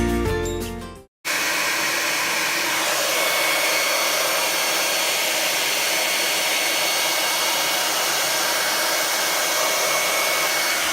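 Revlon hand-held blow dryer running steadily after a short break about a second in: an even, unchanging rush of air with a faint high whistle.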